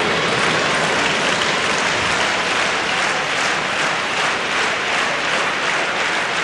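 Tennis stadium crowd applauding steadily.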